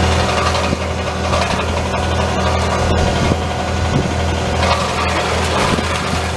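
Bobcat T630 compact track loader's diesel engine running steadily, with a few light clicks and rattles over it.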